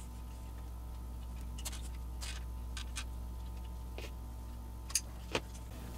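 Scattered faint clicks and ticks of a nylon zip tie and wires being handled, with two sharper clicks near the end, over a steady low hum.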